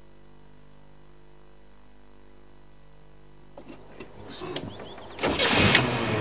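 A faint steady hum. About three and a half seconds in, it gives way to rattling and knocks from an open game-drive vehicle setting off along a dirt track, and the engine and rattle grow loud a little past five seconds.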